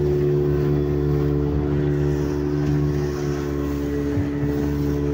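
A motorboat's engine running steadily under way, a constant drone that holds one pitch throughout.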